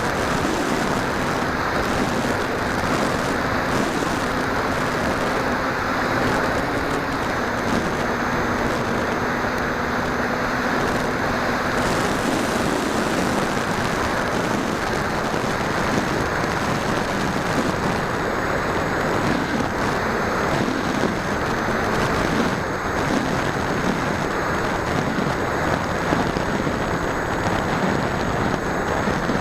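Radio-controlled FPV aircraft in flight: a steady rush of airflow noise. A faint motor hum runs through the first half and a thin high whine through the second.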